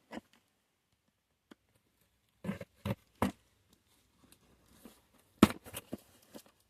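A cardboard shipping package being handled and opened: scattered knocks, scrapes and rustles as she works at the packing tape. A sharp knock about five and a half seconds in is the loudest.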